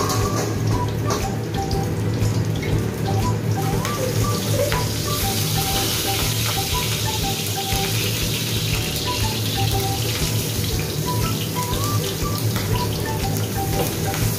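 Oil sizzling in a wok as a milkfish fillet fries. The sizzle grows louder about five seconds in as ginger strips go into the hot oil, under soft background music with a repeating melody.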